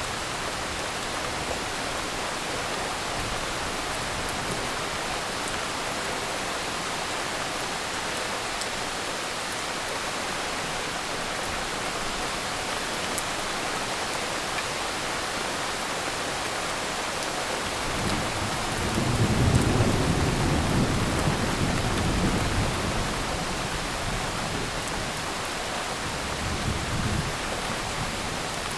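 Thunderstorm: steady heavy rain, with a low roll of thunder rising about two thirds of the way in and dying away a few seconds later, and a fainter rumble near the end.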